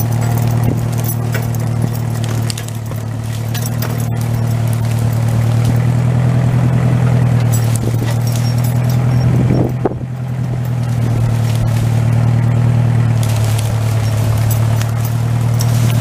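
Massey tractor engine running steadily under load while it drags a chained log out of the woods, with a brief dip in its drone about ten seconds in.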